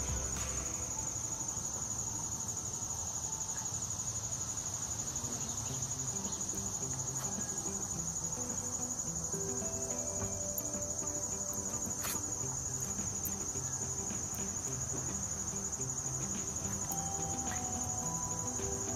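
Insects chirring in a steady, high-pitched trill.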